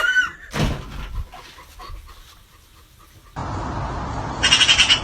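Animal calls: a short cry sliding in pitch at the start, then, after a cut, a rapid pulsed high-pitched call near the end over steady background noise.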